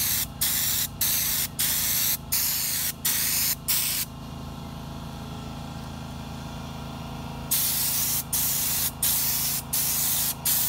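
Air-powered Schutz-type spray gun on a compressed-air hose spraying Raptor bedliner, hissing in repeated short trigger bursts of about half a second each. It stops for about three seconds midway, then resumes with a longer burst followed by shorter ones.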